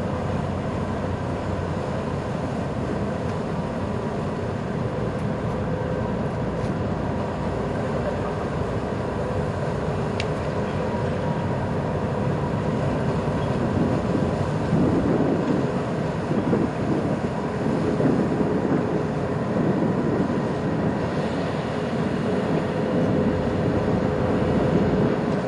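Car ferry's diesel engines running as a steady drone with a faint hum over it, growing louder and rougher about halfway through.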